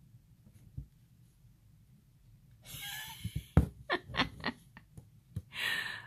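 Close breathing near the microphone: a breathy exhale about two and a half seconds in and an inhale near the end, with a run of sharp clicks from hands handling the embroidery hoop and floss in between; otherwise quiet room tone.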